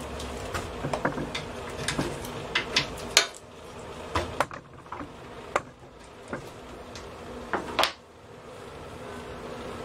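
Metal hand tools and parts clinking and knocking as they are handled, with sharper knocks about three seconds in and again near the end, over a faint steady hum.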